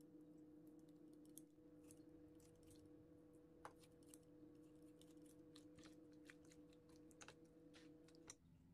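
Faint, irregular snips of kitchen scissors cutting through raw chicken thigh meat, over a low steady hum that stops near the end.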